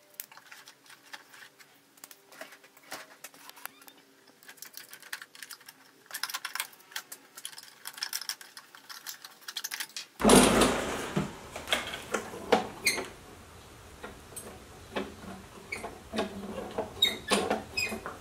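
Hands picking packed, decaying grass clippings out of a Toro Recycler mower's self-propel drive pulley housing, which the debris had jammed: faint rustling and small clicks. About ten seconds in, the sound turns louder, with sharper clicks, knocks and clatter of parts and tools being handled.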